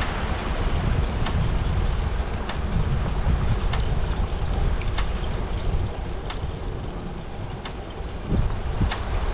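Bicycle riding: steady wind rumble on the microphone with a light click repeating evenly about once every second and a quarter.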